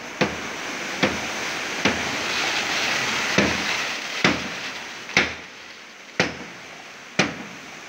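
Eight sharp knocks, about one a second, over a steady rushing noise during a concrete pour from a crane-hung concrete bucket and hose.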